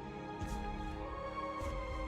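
Slow background music from the film's soundtrack, made of held notes, with a new higher note coming in about a second in.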